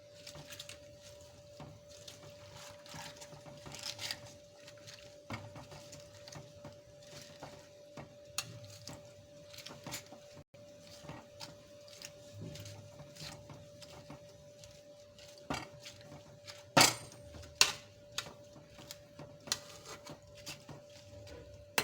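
Scattered clinks and knocks of a metal pot and utensils while gongura leaves boil in water on the stove, over a steady hum. The loudest knocks come about seventeen seconds in.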